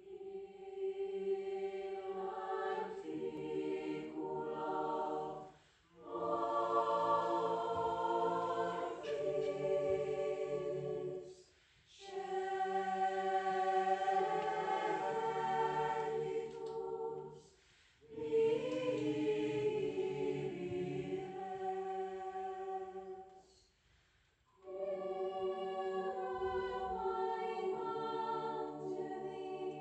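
Mixed choir of women's and men's voices singing a cappella, in phrases of about five to six seconds with short breaks between them.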